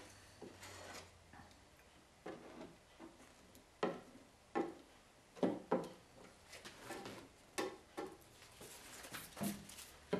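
Spreader scraping and squeegeeing wet epoxy into fibreglass cloth over a hull patch: a series of short, irregular strokes and scrapes.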